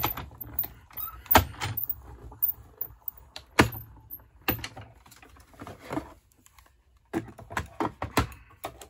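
Hand-cranked Stampin' Cut & Emboss die-cutting machine running a plate sandwich with dies and cardstock through its rollers and back. It gives a low rumble with a series of knocks and clunks about a second apart.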